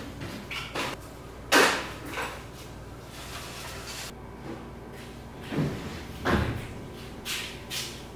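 Short clicks and knocks of small die-cast and plastic model-car parts being handled and pried apart on a tabletop, the loudest about one and a half seconds in and a duller knock about two-thirds of the way through.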